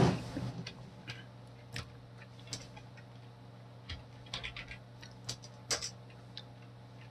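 Scattered light clicks of typing a search, letter by letter, on a smartphone's touchscreen keyboard: about a dozen irregular taps over a faint steady hum, with a brief rush of noise right at the start.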